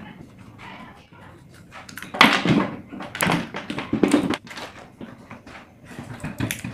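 Knocks and rattles of a stand fan's electric motor and its plastic gearbox housing being handled and pulled apart by hand, in several short bursts through the middle and again near the end.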